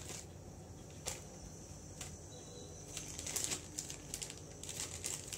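Faint crinkling of a plastic zip-lock bag with light clicks as strawberries are packed into it, the clicks coming thicker near the end.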